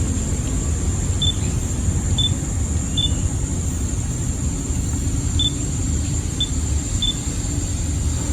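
Steady low rumble with a thin, steady high tone above it, and six short high peeps spread through.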